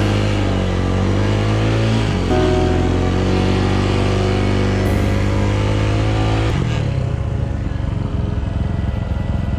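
Motorcycle engine running. Its pitch dips and rises early, shifts once, then holds steady, and about two-thirds through it changes to a rougher, pulsing low note.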